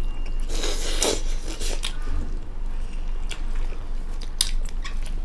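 Close-miked eating sounds: people biting into and chewing steamed chicken momos, with a rustle about a second in and scattered soft clicks and smacks.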